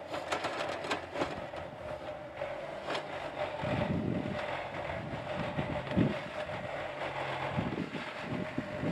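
Yanmar YB451 mini excavator working: its diesel engine runs steadily under a constant whine, with repeated clanks and knocks as it swings and moves damp dirt with the bucket.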